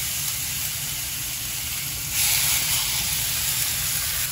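Boneless, skinless chicken thighs sizzling as they sear in a preheated, lightly oiled cast iron skillet. The sizzle swells about two seconds in as a second thigh is laid into the hot pan.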